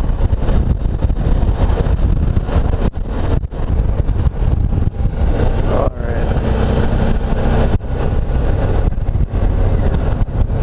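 Suzuki V-Strom motorcycle engine running under way, heard from the rider's position with heavy wind noise over the microphone; the engine pitch rises about halfway through as the rider gets back on the throttle.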